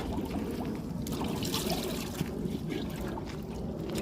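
Water trickling and dribbling into a washtub as wet laundry is squeezed through a hand-cranked clothes wringer.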